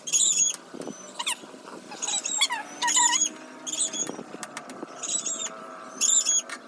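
Birds calling: short, high-pitched chirps repeated about once a second, with a few faint clicks between them.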